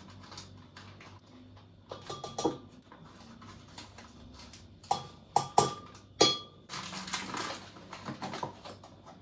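Kitchen utensils clicking and clinking: small knocks and handling noises, with a few sharp, ringing clinks of a spoon against containers about five to six seconds in.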